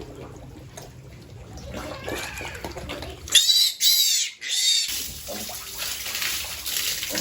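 Piglets squealing during a bath: three loud, high-pitched squeals in a row about halfway through, then the hiss of running or spraying water.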